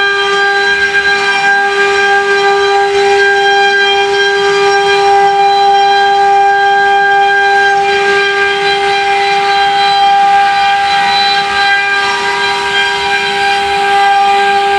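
CNC router spindle running at high speed, a steady high-pitched whine held unchanged.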